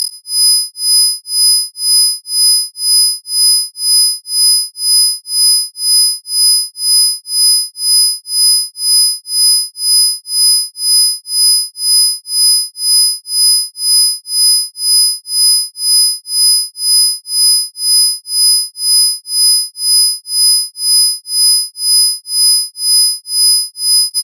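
Isochronic tones: several high-pitched pure sine tones pulsing on and off evenly about twice a second, a 2 Hz pulse.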